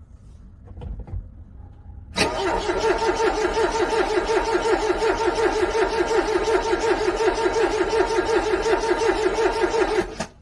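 Car starter motor cranking a cold engine for about eight seconds, with an even pulse of about five beats a second, then cutting off suddenly without the engine catching. A brief small noise comes about a second in, before the cranking starts.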